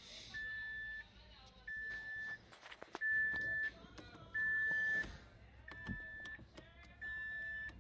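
A car's electronic warning chime beeping steadily: one high tone about two-thirds of a second long, repeated evenly roughly every 1.3 seconds, six times. Light clicks and knocks of hand work sound between the beeps.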